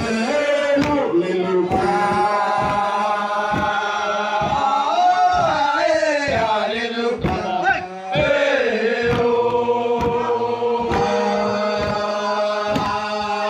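A group of men singing a Manggarai traditional ritual chant in unison, in long held notes. Underneath runs a steady beat of strokes, about twice a second.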